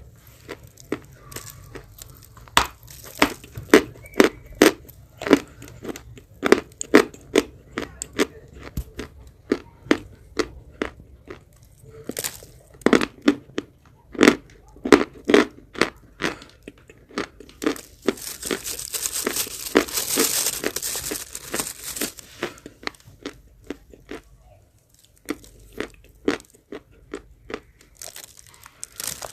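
Close-miked biting and crunching of edible chalk, with many sharp, crisp crunches in irregular runs. A few seconds of dense crackling come about two-thirds of the way in.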